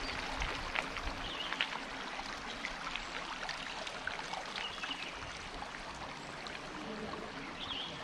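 Stream water flowing steadily.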